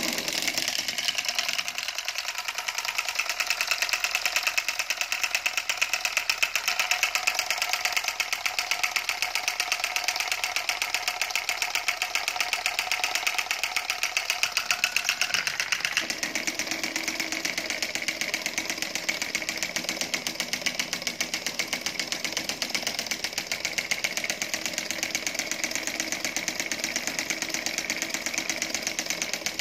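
Homemade 12 V solenoid engine running: a coil on a syringe barrel pulls the plunger to turn a pulley flywheel, giving a fast, even clatter of clicks.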